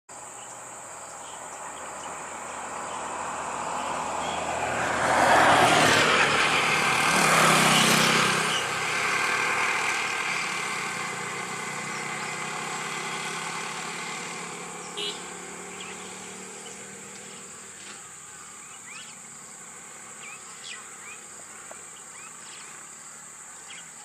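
A motor vehicle passes: it grows louder over the first few seconds, is loudest about five to eight seconds in, then fades away. Under it, a steady high-pitched insect drone carries on throughout.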